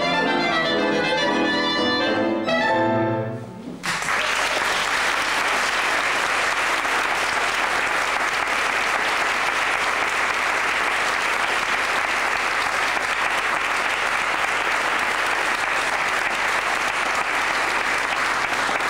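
A chamber ensemble with clarinet and cello plays the closing notes of a piece and stops about three seconds in. After a brief gap the audience bursts into steady applause.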